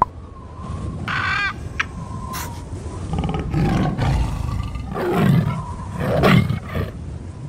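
Sound-effect collage of animal calls for an animated channel logo, led by big-cat roars: two loud, low tiger-like roars about five and six seconds in, with shorter, higher animal calls before them.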